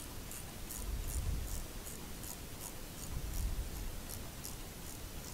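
Ratchet wrench clicking in a steady run of short ticks, about two to three a second, as a wheel bolt is run into a hydraulic floor jack. Low rumble of hands and metal parts being handled underneath.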